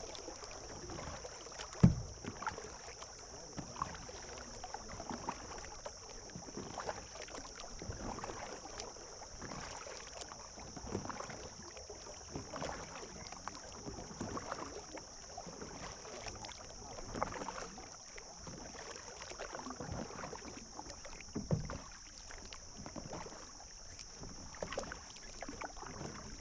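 A double-bladed kayak paddle dipping and splashing in calm water every second or two as a plastic kayak is paddled along. There are two sharp knocks, the loudest about two seconds in and another near the end. A steady high-pitched hiss runs underneath.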